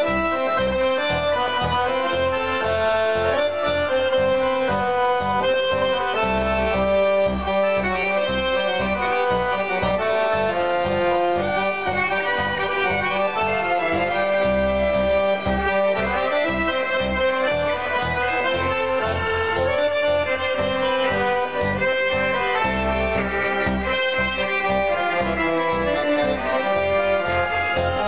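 A tango played live on button accordion with electronic keyboard accompaniment: held accordion notes over a steady, pulsing bass.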